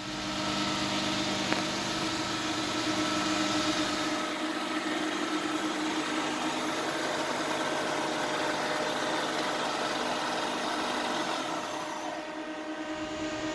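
Muratec MW100 twin-spindle CNC turning center running: a steady mechanical hum with several steady tones over a hiss, and a single click about a second and a half in. About twelve seconds in the hiss thins out while the tones carry on.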